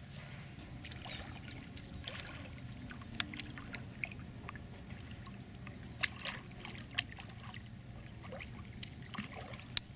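Faint water trickling over a steady low rumble, with a few sharp clicks spread through.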